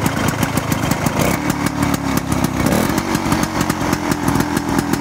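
Rotax Type 337 single-cylinder two-stroke snowmobile engine with a Tillotson HR75A carburetor, running steadily with a fast, even beat of firing pulses.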